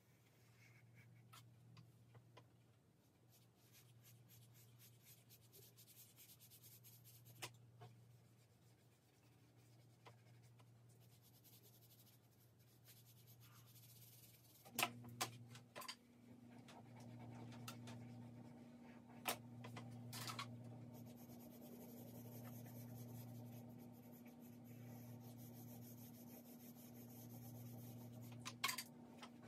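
Faint scratching and rubbing of a drawing pencil shading on paper, broken by a few sharp clicks. A steady low hum comes in about halfway through.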